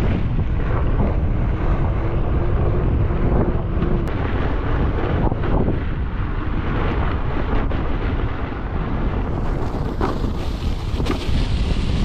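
Wind buffeting the microphone over the rumble of electric unicycle tyres rolling along a wet, gravelly dirt track.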